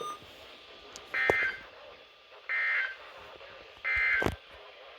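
Emergency Alert System end-of-message data bursts: three short, identical buzzy digital tones a little over a second apart. They mark the end of the severe thunderstorm warning broadcast.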